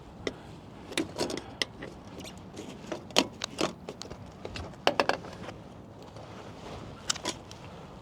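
Scattered clicks, knocks and light rattles of metal parts and tools being handled as an air intake part is worked loose on a Detroit Series 60 diesel engine, in small clusters a second or two apart.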